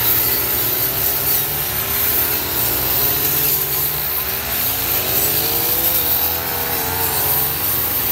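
Several petrol brush cutters running at once while cutting grass, their engine pitches wavering up and down as the throttles and loads change.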